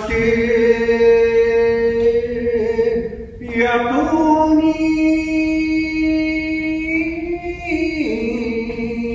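Shigin, Japanese classical poetry chanting: a voice holding long drawn-out notes that shift slowly in pitch. It breaks for a breath about three seconds in, then holds a second long phrase.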